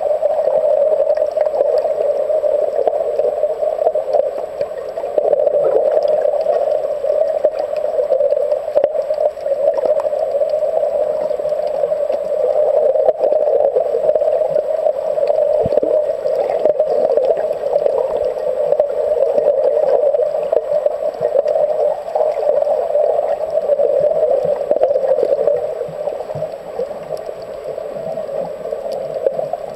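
Steady, muffled underwater rushing noise picked up by a submerged camera, with a few faint clicks.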